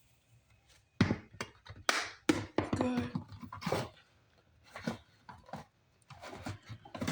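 A spice jar being tapped and shaken to sprinkle seasoning: a run of quick taps and knocks about a second in, then scattered taps until the end.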